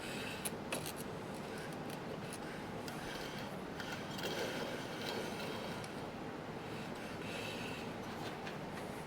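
A test light and wire clips being handled and touched to alternator terminals. There are two sharp clicks about half a second in, then light scraping and rubbing.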